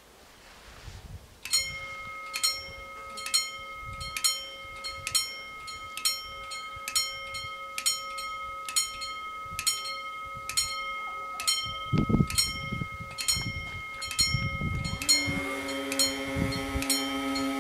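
Italian railway level-crossing warning bells start ringing about a second and a half in: sharp strikes a little more than once a second, each ringing on until the next, as the crossing begins its warning for an approaching train. Near the end a steady lower hum and a busier ringing join in.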